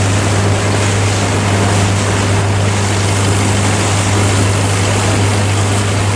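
Boat engine running steadily under way, a constant low hum with water wash and wind hiss over it.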